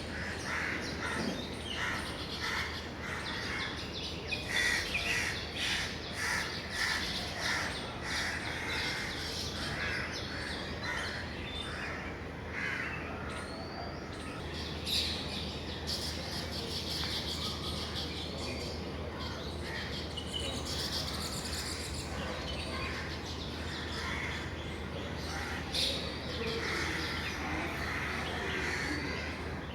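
A colony of baya weavers chirping and chattering, many short overlapping chirps without pause, over a steady low hum.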